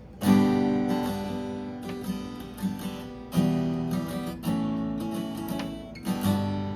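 Acoustic guitar freshly strung with D'Addario phosphor bronze strings, strumming chords: four full strums left to ring out, with lighter strokes in between.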